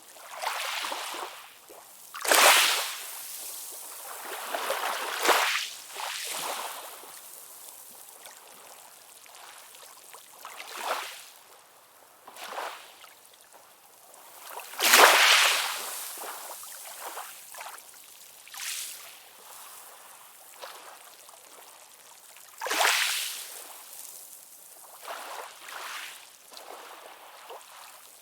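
Calm ocean waves washing ashore: irregular swells of surf that each rise to a rush of water and fade back to a soft steady wash, with no deep rumble. The biggest waves come about two seconds in, around five seconds, midway and a few seconds before the end.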